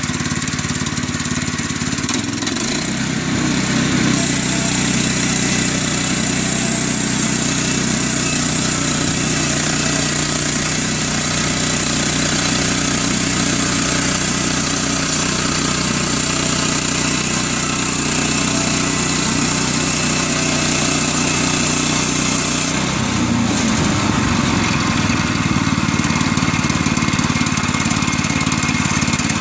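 Woodland Mills HM122 portable bandsaw mill's gasoline engine revs up about two seconds in, then runs steadily at speed while the band blade cuts through a log, with a high hiss over the engine. Near the end the cut finishes and the engine drops back to idle.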